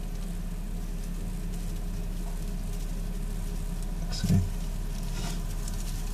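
Steady low hum with a faint hiss. Over it come a few faint, short crackles of shredded-paper bedding and one brief low bump about four seconds in.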